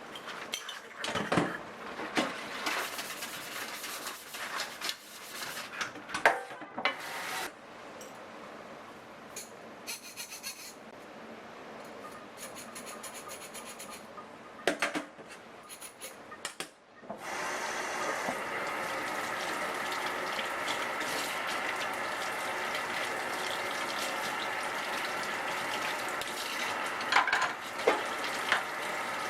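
Dishes and utensils clinking and knocking, then, from a little past halfway, a steady rushing hiss with a few more knocks near the end.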